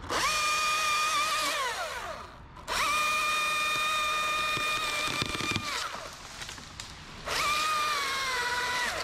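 Top-handle chainsaw at full throttle, cutting through a tree limb in three bursts. Each burst is a steady high whine, and the revs drop away between cuts. In the last burst the pitch sags a little as the chain bites into the wood.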